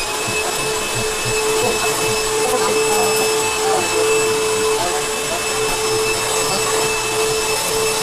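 Dirt Devil upright vacuum cleaner running steadily with a constant whine, pushed back and forth over a rug.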